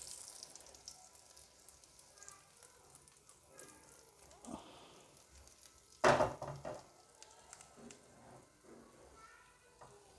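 Oil sizzling and crackling in a nonstick pan as a tadka of cumin seeds, asafoetida, turmeric and degi mirch chilli powder fries, loudest at first, with a sudden louder burst about six seconds in.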